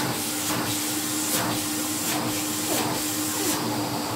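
Philips P99 HR6299 cylinder vacuum cleaner running, a steady motor whine under a loud rush of air through the hose and nozzle. The air rush surges several times and drops away near the end. It is short of suction, which the owner puts down to an air leak around the badly sealing dust bag.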